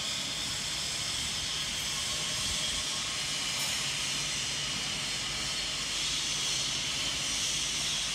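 Steady factory-floor background noise: an even hiss with a low, steady hum underneath, unchanging throughout.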